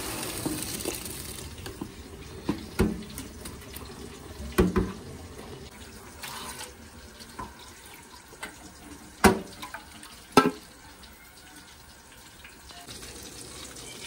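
Water and parboiled rice poured from a pot into a plastic colander in a metal sink, the water rushing through at first, followed by several sharp knocks of the metal pot against the sink.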